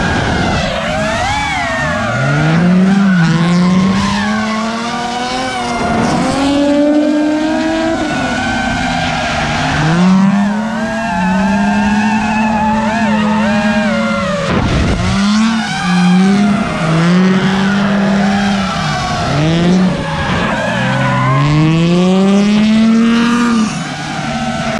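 Nissan 350Z drifting: its engine revs climb, hold high and drop back again and again, with tyre squeal under it.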